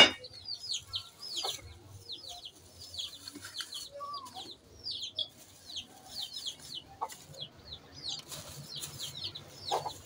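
Birds chirping: short, high chirps that fall in pitch, two or three a second. A sharp knock at the very start as a saucepan is set down, and a few softer knocks later as wrapped snacks are placed in it.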